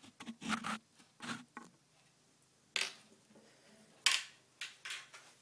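A string of short knocks and rustles, about seven in all, loudest about four seconds in: handling noise as the camera is set and a person moves about with an acoustic guitar.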